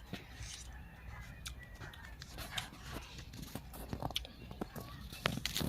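Close-up crunching and chewing of raw vegetables: a run of crisp, irregular crunches and mouth clicks, loudest near the end.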